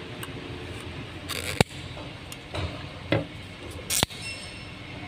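Hard plastic parts of a car's fuel filter assembly being handled and fitted together: a few sharp clicks and knocks, the loudest about a second and a half in and again near four seconds, with softer handling rattles between, over a steady low hum.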